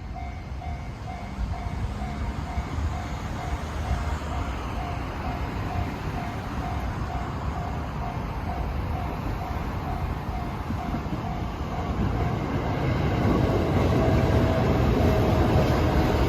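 Japanese railway level-crossing alarm ringing in steady, evenly repeated dings while a train on the JR Utsunomiya Line runs through the crossing. The train's rumble grows louder about twelve seconds in.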